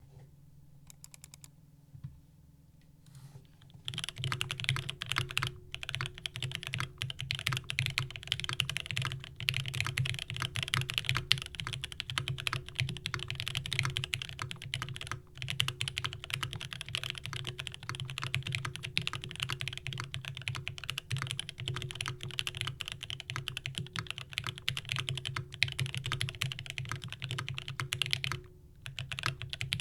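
Kepler FC65 mechanical keyboard with an aluminium plate, lubed Gateron Black Ink linear switches and GMK keycaps, being typed on fast and continuously. The typing starts in earnest about four seconds in, after a few faint clicks, and pauses briefly near the end.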